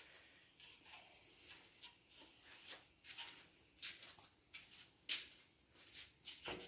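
Faint, irregular clicks, taps and rustles of handling as a new radiator with rubber hose pads is picked up and carried, with a sharper tap about five seconds in.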